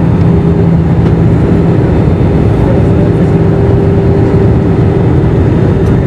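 Steady cabin noise of a jet airliner in flight, heard from a seat over the wing: engine and airflow rumble. A low hum fades out about a second and a half in, and a higher steady hum holds above it.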